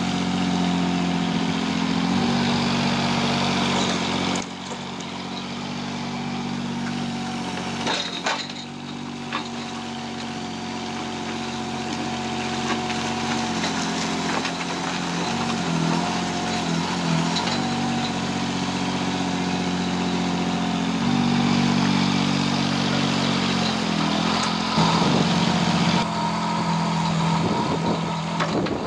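Kubota U10 micro digger's small diesel engine running as the bucket digs into turf and soil, its note shifting several times as the hydraulics take load. A few sharp knocks about eight seconds in.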